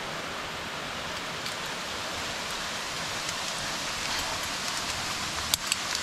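Steady rush of water from a mountain stream and its falls. Two sharp clicks come close together near the end.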